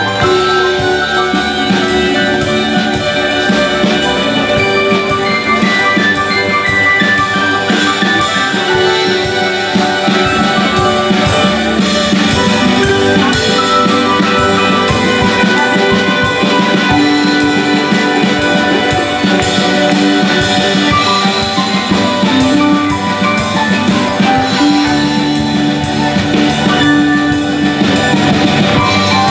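Live band playing an instrumental passage, with saxophone, keyboard, guitars and drums.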